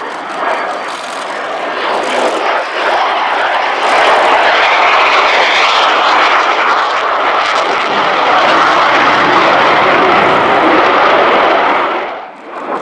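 A MiG-29 Fulcrum's twin Klimov RD-33 turbofans on a low gear-down pass: a loud jet roar that builds over the first few seconds, holds steady, then drops away sharply near the end.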